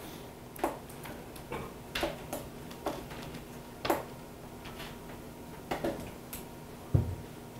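Irregular light clicks and taps of students' pens and books on desks, about ten spread over several seconds, with a duller thump near the end. A faint steady hum runs underneath.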